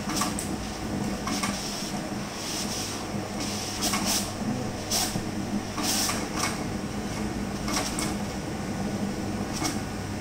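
Large-format vinyl printer running: a steady low hum of motors and fans, with short hissing swishes roughly once a second.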